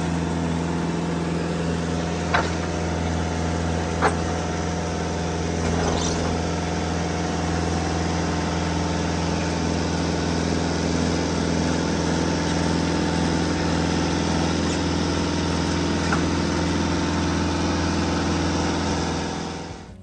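Timber King 2000 sawmill's engine running at a steady speed, with a few brief sharp clicks; the sound fades out near the end.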